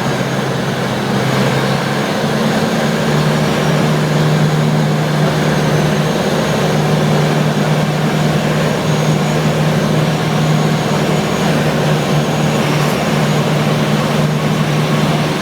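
Piper PA-28 Arrow's single piston engine and propeller running steadily, heard from inside the cabin as a low hum under a broad rush of air noise, with a faint high whine over it.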